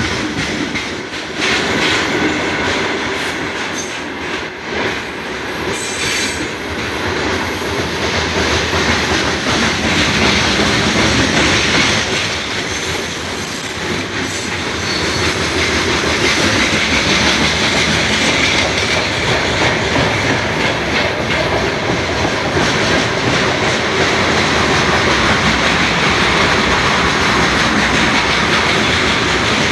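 Loaded freight train rolling slowly past, its wagon wheels clattering over the rail joints with the rails creaking and the wheels squealing. The sound is steady, growing a little louder about ten seconds in.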